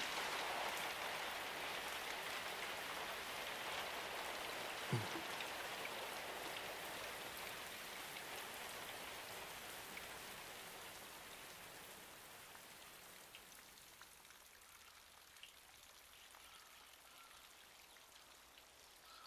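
Steady rain falling, slowly dying away until it has nearly stopped.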